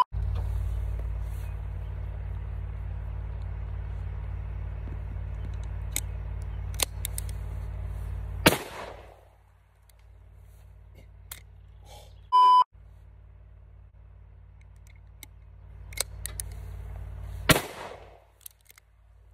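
A glitch sound effect: a loud steady hum with hiss that is cut off by a sharp bang about eight and a half seconds in, and a short high test-tone beep about four seconds later. Near the end comes a single .44 Magnum shot from a single-shot pistol, a sharp crack with a short ringing tail.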